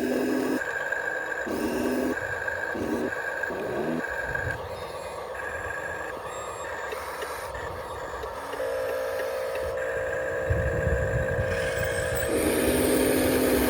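Radio-controlled construction models, a bulldozer and a truck, at work: beeps switching on and off about twice a second for the first few seconds, over steady mechanical running, then a steady hum and a hiss near the end.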